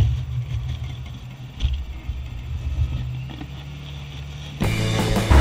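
Off-road 4x4 engine running with a steady low rumble. Music comes in near the end.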